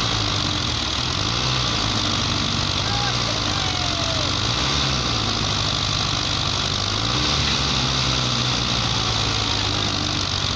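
Belarus tractors' diesel engines running hard under load, trying to drag a loaded sugarcane trolley out of deep mud. The engine note rises and falls several times as the throttle is worked.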